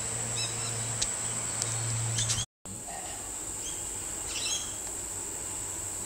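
A steady high-pitched insect drone with a few short bird chirps, and a low hum underneath in the first half. The audio cuts out completely for a moment about two and a half seconds in.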